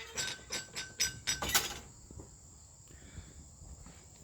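Quick series of metallic clicks from a sawmill carriage's setworks handle and ratchet as it is worked to move the log closer, about six or seven clinks in under two seconds, then it stops. A steady high insect buzz runs behind.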